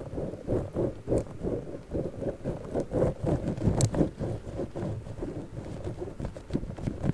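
Giant spiky orbeez-filled squishy ball handled close to the microphone: soft, dull squishing pulses, about three a second.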